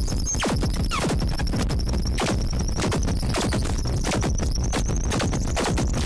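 Harsh noise music: a loud, unbroken wall of electronic noise chopped by rapid stuttering clicks, with a few falling pitch sweeps in the first second.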